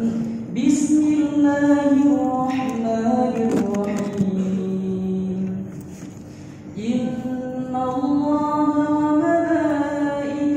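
A man's solo voice chanting the adhan (Islamic call to prayer) in long, drawn-out, ornamented phrases, with a pause for breath about six seconds in before the next phrase.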